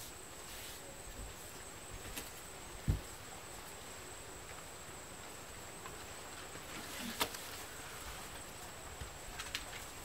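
Faint outdoor ambience with a steady high-pitched insect drone. Over it come a dull thump about three seconds in and a sharp click a little after seven seconds, from hand work with wet mud and a clay bowl.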